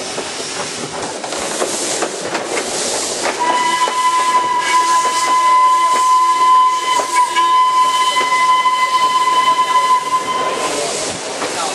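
Whistle of North British-built steam locomotive No. 191, one long steady note of about seven seconds starting a few seconds in, over the running noise of the moving train.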